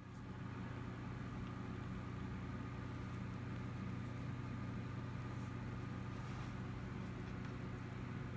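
Steady low mechanical hum with a faint hiss, holding at an even level throughout.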